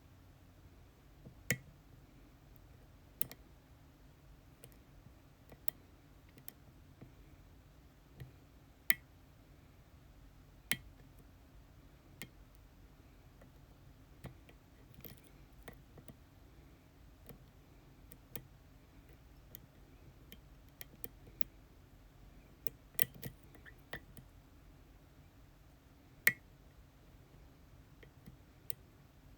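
Small sharp clicks from lock picks working the pins of an ASSA Twin Exclusive lock cylinder. The clicks come irregularly, with a few much louder than the rest.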